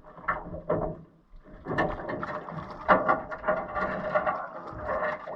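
Splashing and irregular clunks and rattles against an aluminum boat's hull as a rainbow trout is landed over the side, starting about a second and a half in.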